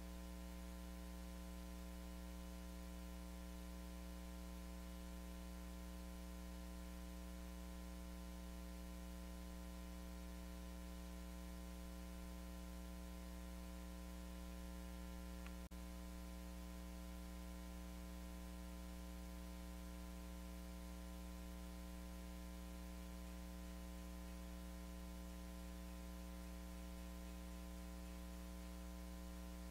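Steady electrical mains hum with a bed of hiss from a recording whose microphone was switched off, so the hammering goes unheard. One faint click about halfway through.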